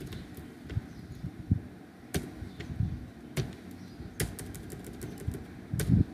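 Computer keyboard keystrokes: irregular sharp clicks with dull low thuds among them, some in quick runs, others spaced apart.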